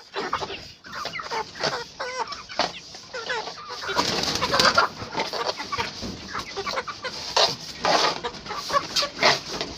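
A flock of chickens clucking and calling, many birds at once with overlapping calls.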